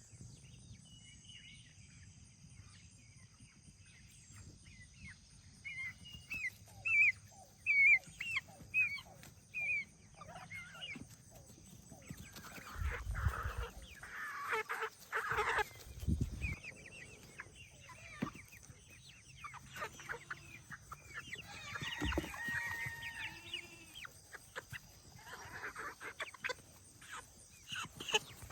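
Chickens clucking and calling, with a run of short high calls about twice a second and louder jumbled calling later, plus a few dull thumps.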